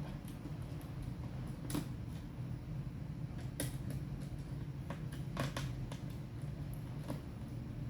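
Scattered light clicks and taps of hand tools and plastic parts being handled on a laptop, five or six in all, over a steady low hum.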